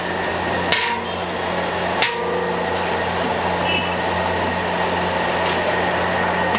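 Two sharp knocks about a second and a quarter apart, as a utensil strikes a plastic bucket while ginger-garlic paste is scraped out of it, over a steady mechanical hum.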